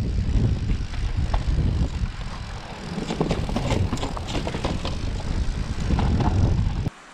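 Heavy wind rumble on the camera's microphone while an e-bike rides down a rocky mountain trail, with rattles and knocks from the bike jolting over stones. The sound cuts off suddenly near the end.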